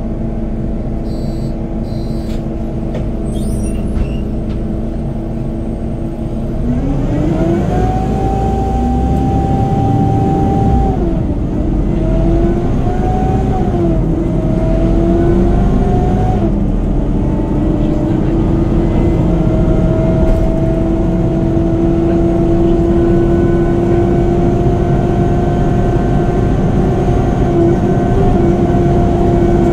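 Mercedes-Benz Conecto articulated city bus pulling away, heard from inside: a loud whining howl that climbs in pitch with the engine about six seconds in, drops back at three gear changes, then holds and slowly rises as the bus runs on. The howl is the engine cooling fan running hard, which the owner puts down to a cooling problem.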